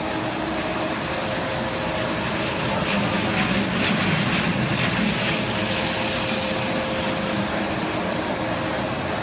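Steady hum and whir of a running pet food extrusion line's machinery, with a few constant drone tones. For a couple of seconds in the middle it grows louder, with a dense rattle of dry kibble tumbling in a rotating drum.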